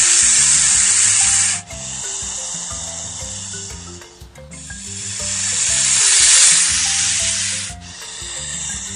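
Snake hissing in two long, loud hisses. The first cuts off about a second and a half in and the second swells and cuts off near the end, with a softer hiss between them.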